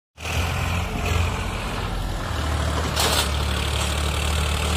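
Farmtrac 60 EPI tractor's diesel engine labouring steadily as it hauls a fully loaded trolley up a sandy slope, with a brief burst of hiss about three seconds in.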